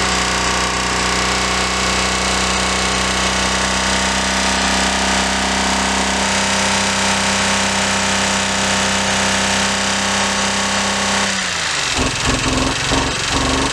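Chevrolet Impala engine, which has a blown head gasket, held at steady high revs and run hard in an attempt to blow it. Near the end the revs fall and it runs unevenly, pulsing.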